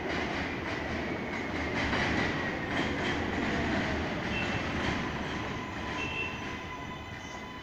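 Subway train pulling into an elevated station on the next track over: steady wheel-and-rail noise that is loudest about two seconds in and eases as the train slows, with thin high squeals from the wheels.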